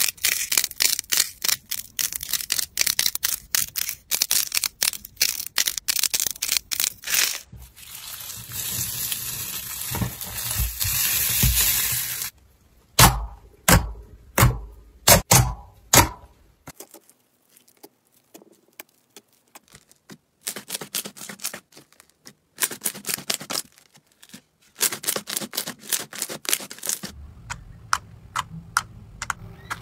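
Slime being pressed and poked by hand. It starts with dense crackling and popping from crunchy slime set with foam balls, then a stretch of hissing squish. A few loud single pops follow, then softer, sparser sticky clicks.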